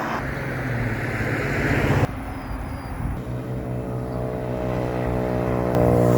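A car's engine and road noise while driving. The noise breaks off abruptly about two seconds in, then the engine note comes through clearer and grows louder near the end.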